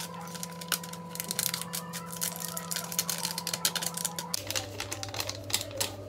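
Thin plastic sachet of pani puri masala crinkling and crackling in the hands as it is opened and emptied into a pot, over a steady low hum that drops in pitch about four seconds in.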